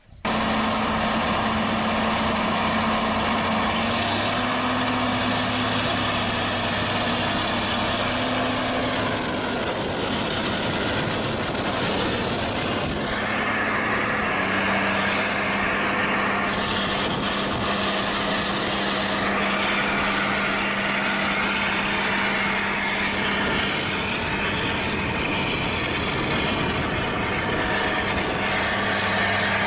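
Large four-wheel-drive John Deere tractor's diesel engine running steadily under load as it pulls a planter, with a faint high whine that rises about four seconds in and then holds.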